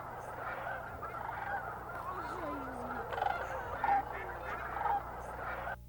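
A large flock of waterfowl calling all at once: a dense chorus of overlapping honks. It cuts off just before the end.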